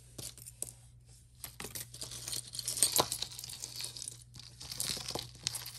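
Crinkling and rustling of packaging being handled, with a few sharp clicks among it.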